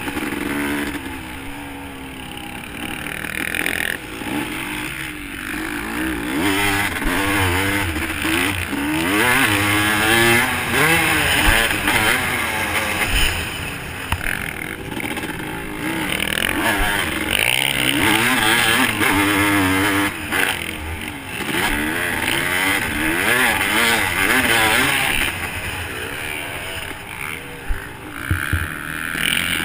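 Dirt bike engine revving up and down again and again as the bike accelerates and backs off around a motocross track, heard from the rider's own camera with wind rushing over the microphone. A few sharp knocks come in, one of them near the end.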